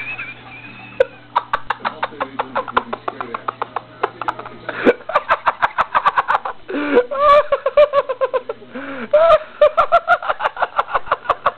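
A person giggling and laughing in long runs of quick, high-pitched pulses, with brief breaks between bouts.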